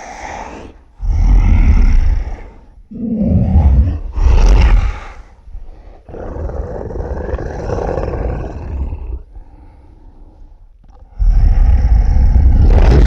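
Monster breathing-and-snarling sound effect: a run of loud, rough snarls with a heavy low rumble, several short ones in the first five seconds, then a longer, quieter growling breath, then a loud snarl again near the end.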